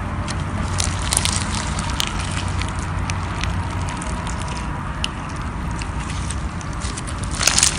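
Slime being squished and worked by hands: continuous wet squelching with many small clicks and pops, a flurry of sharper clicks near the end.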